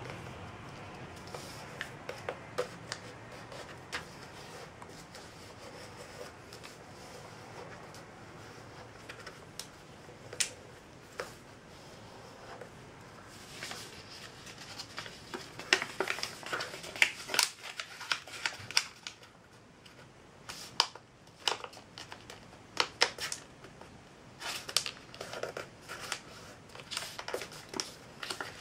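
A sheet of paper being folded and creased by hand on a tabletop: scattered crisp rustles and presses, coming thicker and louder in the second half.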